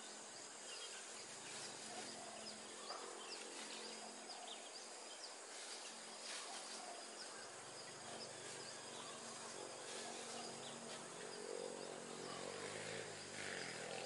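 Faint, scattered short high chirps of small birds over a steady hiss. A low hum comes in about halfway through and wavers near the end.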